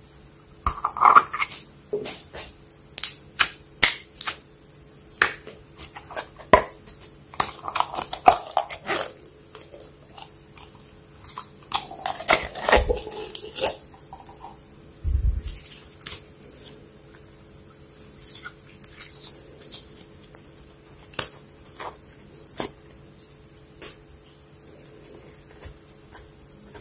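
Slime being squeezed and poked by hand, giving irregular sharp clicks and pops that come thickly in the first half and more sparsely later.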